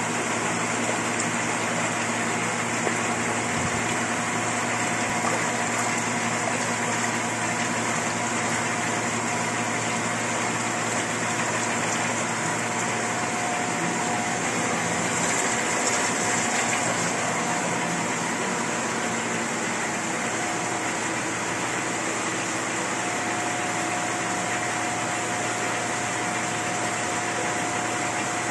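Roller-bed sludge dewatering machine running steadily: a constant motor hum with a couple of steady whining tones over an even hiss.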